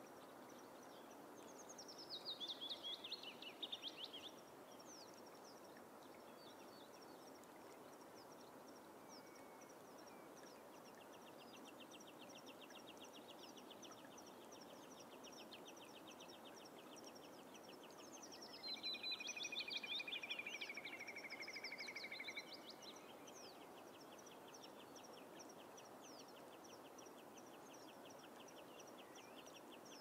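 Birds on a northern bog. Twice, near the start and again past the middle, a songbird sings a short phrase of sweet notes falling in pitch, the song of a willow warbler. Beneath it run a faint fast trill through the second half and a steady series of high ticking calls, over a soft, even background hiss.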